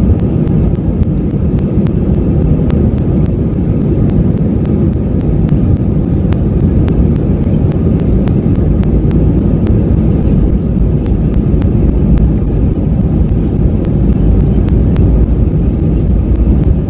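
Airbus A320-200 engines and runway rumble heard from inside the cabin over the wing during the takeoff roll: a loud, steady, deep roar with faint rapid ticks over it.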